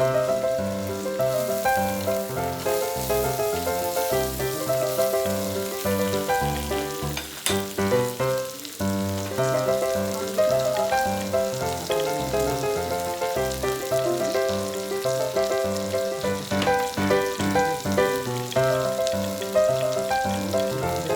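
Pork belly sizzling on a tabletop grill, an even crackling hiss, under background music with a steady beat. A single sharp click comes about seven seconds in.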